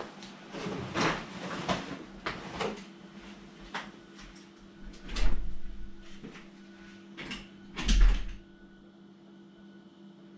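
A person getting up from a table and walking away, with clothing rustle and footsteps. Then a door is handled: two heavy thuds about three seconds apart, the second the loudest, as it is opened and shut.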